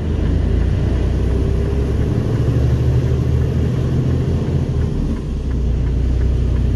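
Mercedes-Benz Actros MP4 truck's diesel engine running under load as the truck picks up speed, a steady low drone with road rumble.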